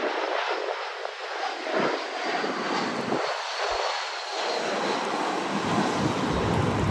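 Jet engines of a British Airways Airbus A319 on final approach with its gear down: a steady rushing noise with a faint high whine that drops slightly in pitch, and a low rumble that builds over the last couple of seconds as the jet comes closer.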